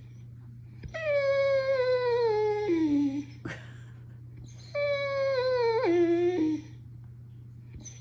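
Dog whining in two long cries of about two seconds each, both sliding down in pitch, complaining because the other dog has the ball it wants.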